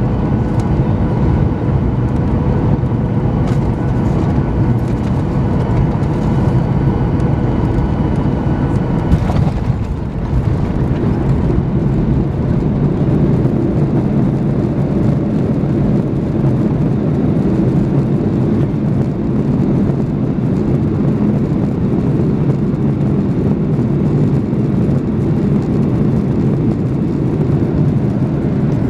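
Cabin noise over the wing of a Boeing 737-900ER on landing. Its CFM56 engines give a steady hum with a whine on final approach. About nine seconds in there is a thump as the wheels touch down, then an even, heavier rumble of the rollout on the runway.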